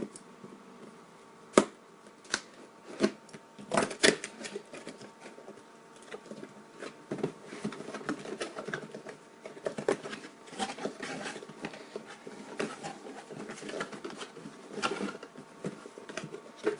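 A cardboard retail box being opened and its packed contents handled: a few sharp knocks and clicks in the first few seconds, then irregular tapping, clicking and rustling of cardboard and paper packaging.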